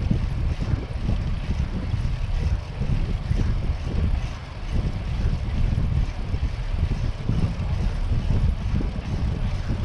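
Wind buffeting the microphone of a camera riding along on a moving bicycle: a steady, gusting low rumble.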